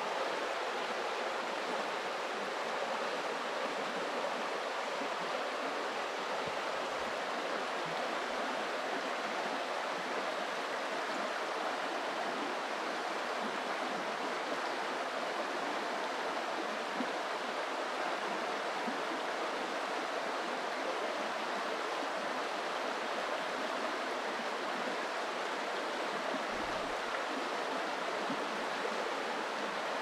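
Pitkäkoski rapids on the Vantaa River, water rushing over the rapids in a steady, even roar.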